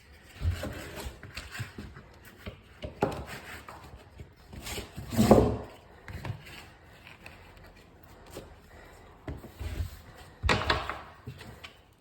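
Laminate floor planks being handled and fitted: scattered wooden knocks and scraping, the loudest a little past halfway, with another knock near the end.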